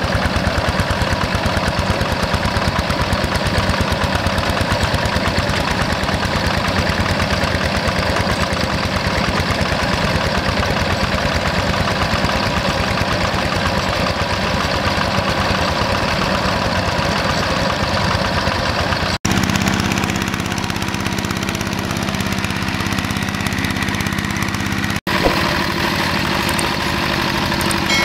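Single-cylinder Yanmar diesel engine of a G1000 hand tractor running steadily with a rapid, even knocking beat. Steam or smoke is rising from the engine just after it was topped up with cooling water. The sound breaks off briefly twice, about two-thirds of the way in and near the end, and then carries on with a slightly different tone.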